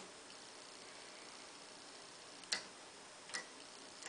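Tektronix 321A oscilloscope's front-panel rotary range switch clicking into its detents as it is turned a step at a time: two sharp clicks under a second apart about two and a half seconds in, and a fainter one at the very end, over a faint steady hiss.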